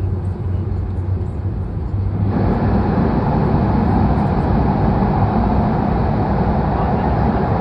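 Cabin running noise of an H5-series Shinkansen train at speed. About two seconds in, the noise suddenly grows louder and fuller as the train enters a tunnel, then holds steady.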